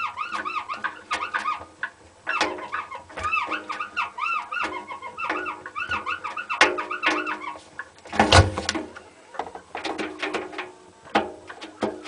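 Hotpoint WT960 washing machine drum squeaking as it turns: rapid, repeating high squeaks that rise and fall in pitch, about three a second, with scattered clicks. A short loud thud about eight seconds in.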